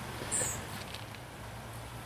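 Plastic handling on a Chapin HydroFeed fertilizer injector: a short high squeak about a third of a second in, then a few light clicks as the funnel is lifted out of the filler port and the plastic cap is fitted back on.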